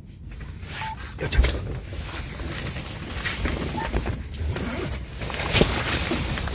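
Outdoor noise with low wind rumble on the microphone and scattered short knocks and rustles.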